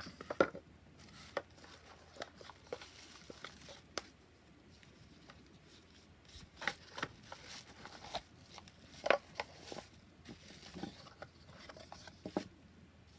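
Hands handling a card deck's box and packaging: scattered taps, clicks and rustles, with sharper knocks about half a second in and about nine seconds in.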